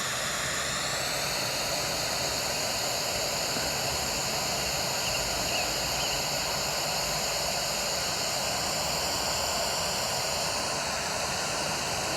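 Steady rushing noise, like a distant jet aircraft overhead, whose tone shifts slightly about a second in and again near the end.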